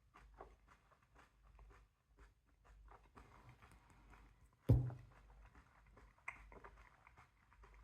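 Faint chewing of a raw bird's eye chilli: many small wet mouth clicks and ticks, with one sharp thump a little past halfway.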